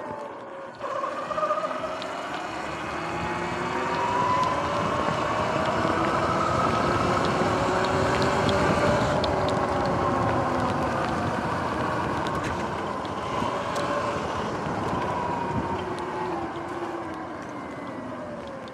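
Electric dirt bike's motor whining as it rides, the whine rising in pitch as it speeds up over the first few seconds and falling as it slows toward the end, over steady wind and road noise.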